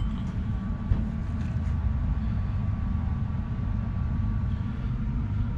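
Steady low hum and rumble of background machinery, with a faint high whine held on one note above it, and a single light click about a second in.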